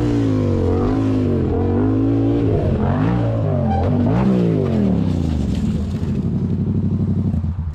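A motorcycle engine revving, its pitch rising and falling several times. About five seconds in it settles into a fast, even pulsing run at low revs.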